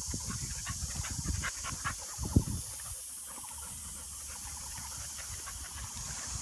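Dogs playing on grass: a quick run of short, sharp dog sounds in the first two seconds and one sharp knock about two and a half seconds in, over a steady high hiss.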